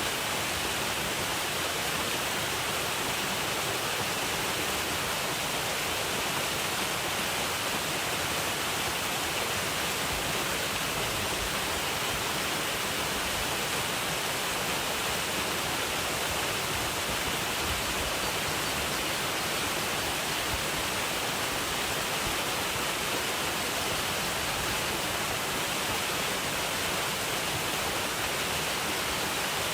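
Waterfall: a steady rush of falling water with an even hiss strongest in the upper range, unchanging throughout.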